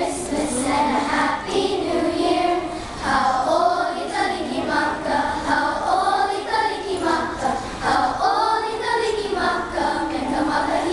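A group of children singing a song together in unison, the song accompanying a hula dance.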